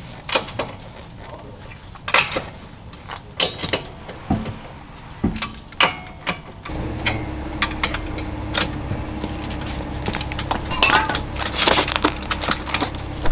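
Scattered metal clinks and knocks as a car wheel is hung on the hub and its lug nuts are put on by hand. About halfway a steady low hum comes in underneath.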